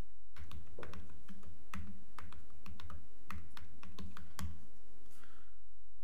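Computer keyboard typing: a run of irregular keystrokes, each with a dull thud, that stops about four and a half seconds in.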